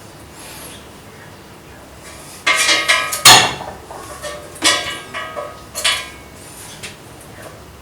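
Metal tools and parts knocking and clanking with a short metallic ring: a quick rattle of knocks about two and a half seconds in, the loudest strike just after, then a few more spaced knocks.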